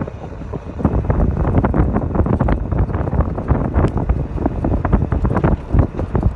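Wind buffeting a microphone on a moving cart: a loud, rough, gusting rumble that picks up about a second in.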